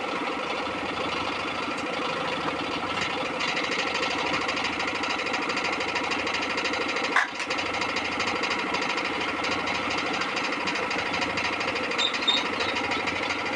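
Small power buffing tool running steadily with a fast rattle, roughening the rubber inside a truck inner tube to prepare it for a patch. It dips briefly with a click about halfway.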